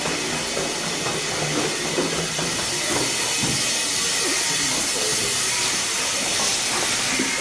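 Escaping steam hissing steadily, with a rough mechanical clatter underneath.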